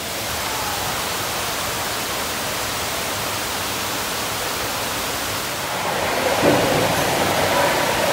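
Steady rushing of water from the pools' fountains and cascades, echoing through an indoor swimming hall. It grows a little louder about six seconds in, with a faint mix of other sound on top.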